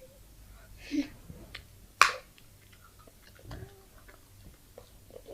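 Eating sounds close to the microphone: small clicks and crunches of chewing, a crisp burst about a second in and one sharp, loud crunch about two seconds in.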